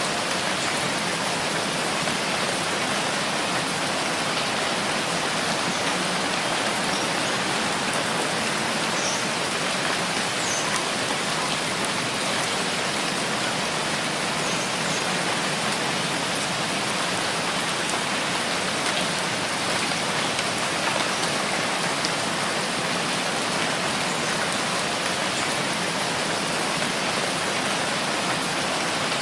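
Steady rainfall: a dense, even hiss of falling drops, with a few faint individual drop ticks standing out now and then.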